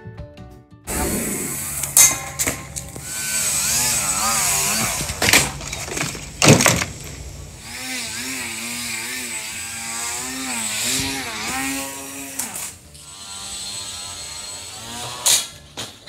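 Small electric RC aerobatic plane's motor and propeller buzzing while it hovers, its pitch rising and falling steadily as the throttle is worked, with a few short louder surges.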